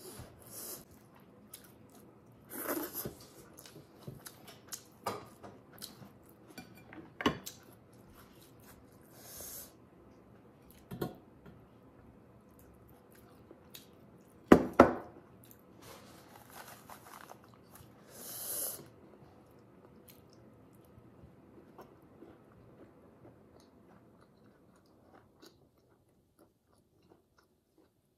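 Close-up sounds of a person chewing a mouthful of rice and curry, in short irregular bursts, the loudest a pair of strong ones about halfway through.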